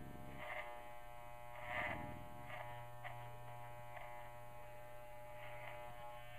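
Corded electric dog clippers running with a steady buzz while shaving fur from a dog's face. The buzz swells briefly several times, most strongly about two seconds in.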